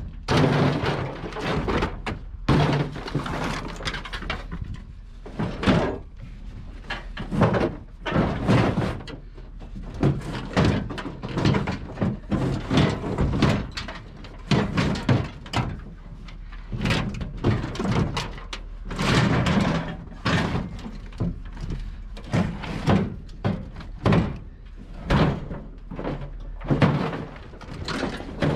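Scrap metal banging and clanking as pieces are dragged out of a truck-bed load and thrown onto the pile, sharp irregular knocks about every second or so, over a steady low rumble.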